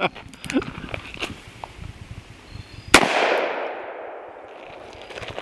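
A single shot from a Smith & Wesson 686 Plus .357 Magnum revolver firing a 158-grain jacketed soft-point, about three seconds in: a sharp crack followed by a long echo that fades over about a second and a half.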